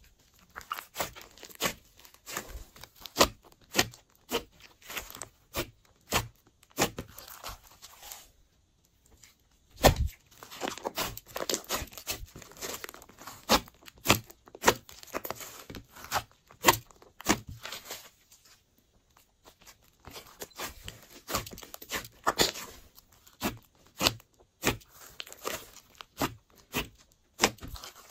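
Hands pressing, poking and folding thick pink slime, giving irregular crackles and sharp pops as trapped air bursts out, with a couple of short pauses. The loudest pop comes about ten seconds in.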